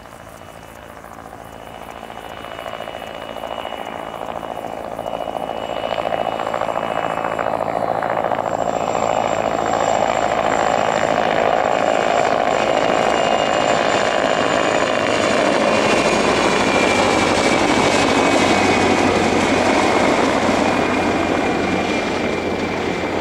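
PZL Mi-2 helicopter approaching, its twin turboshaft engines and rotor growing louder over the first ten seconds and then holding steady. A high turbine whine sits over the rotor noise and slowly falls in pitch.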